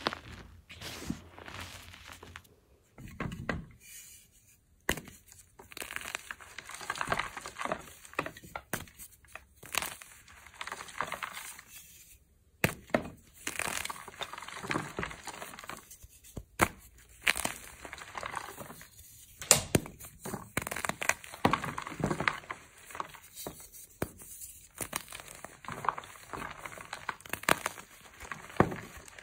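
Blocks of gym chalk (magnesium carbonate) crushed and crumbled by hand. Sharp snaps come as pieces break, between bursts of gritty crunching and soft powdery crumbling.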